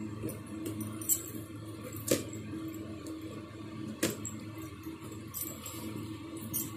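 Scissors cutting through packing tape on a cardboard box, with cardboard rustling and a few sharp clicks. A metal chain bracelet jingles along with the hand movements, over a steady low hum.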